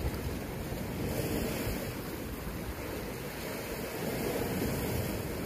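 Sea waves washing against shoreline rocks in a steady rushing wash, with wind rumbling on the microphone.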